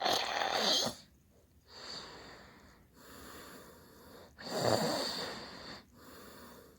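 Heavy snoring from a sleeper: two loud snores, one at the start and one about halfway through, with softer breaths between them.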